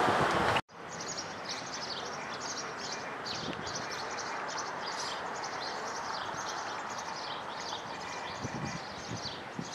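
Wind buffeting the microphone, cut off abruptly under a second in, followed by many birds chirping rapidly and irregularly over a steady background hiss.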